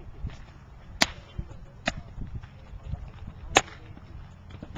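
Baseballs popping sharply into leather gloves during bullpen throwing: a crack about a second in as the pitch hits the catcher's mitt, then more glove pops. The loudest comes about three-quarters of the way through.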